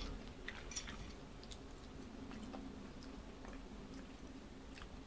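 Faint chewing of a mouthful of fried, batter-coated ripe tomato, with scattered soft wet mouth clicks. A low steady hum runs underneath.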